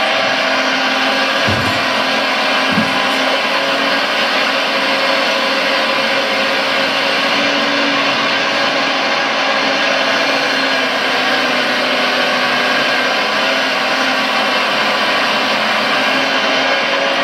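Scale RC Liebherr R956 excavator working, a steady motorised whir from its hydraulics and engine-sound unit, with two brief low thumps about one and a half and three seconds in.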